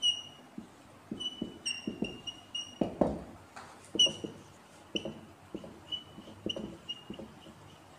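Marker strokes and taps on a whiteboard as writing goes on, with one firmer knock about three seconds in. Throughout, short high chirps at one fixed pitch repeat about twice a second.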